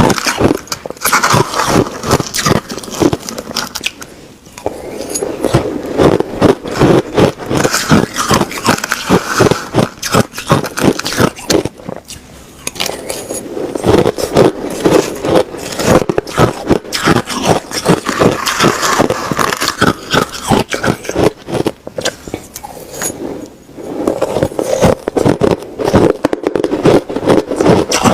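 A person biting and chewing ice close to the microphone: a dense, rapid run of sharp crunches, with brief lulls about four, twelve and twenty-three seconds in.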